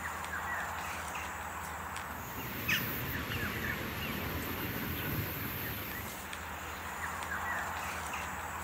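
Countryside ambience: scattered short bird chirps over a steady low background noise, with one sharp click about two and a half seconds in.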